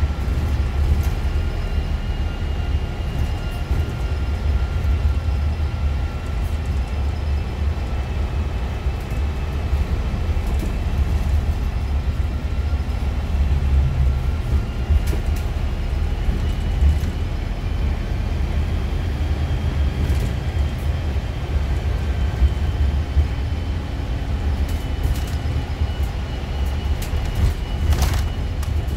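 Cabin sound of a moving Scania Citywide LF CNG city bus: a steady low drone from its rear-mounted compressed-natural-gas engine and drivetrain, mixed with road and tyre noise. Scattered small interior rattles and clicks run through it, with a sharper click near the end.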